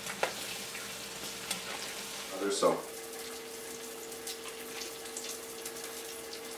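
Breaded squirrel pieces frying in hot oil in a cast-iron pot: a steady sizzle with scattered small crackles over a faint steady hum. About two and a half seconds in, a man makes a brief vocal sound.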